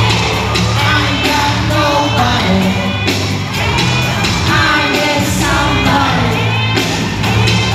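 Live K-pop song played loud through an arena sound system: a steady beat with heavy bass and a male lead vocal, with crowd voices shouting along in the big hall.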